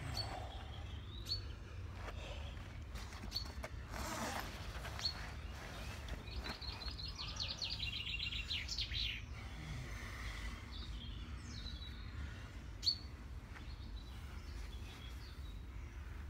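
Small songbirds chirping at intervals, with one rapid trill of repeated high notes about halfway through. Fabric rustles briefly as a person sits up out of a bedroll, and one sharp click sounds a few seconds before the end.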